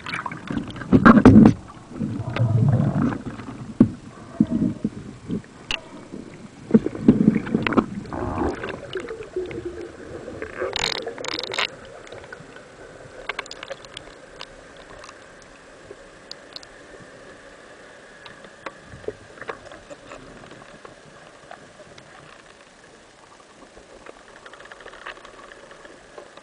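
Underwater sound picked up by a spearfisher's camera: irregular gurgling, bubbling rumbles for the first ten seconds or so. It then settles to quieter water with scattered clicks and a faint steady hum.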